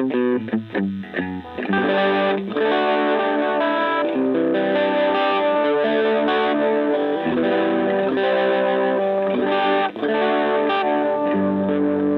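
Electric guitar fitted with three single-coil pickups wired in series, played through overdrive: quick choppy chord strokes for the first second or so, then held chords and ringing notes. The series wiring carries a hum, because only two of the three pickups cancel it.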